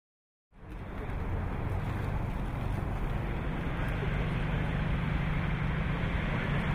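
Steady outdoor background noise, a low rumble and hiss with a faint steady hum, starting about half a second in after silence.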